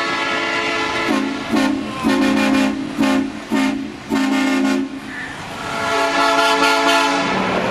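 Truck air horns sounding a quick series of about six short, chord-like blasts, then a longer, steadier horn note near the end.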